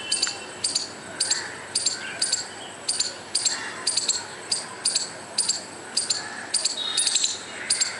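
A squirrel calling, a string of short, sharp, high-pitched chirps repeated about twice a second.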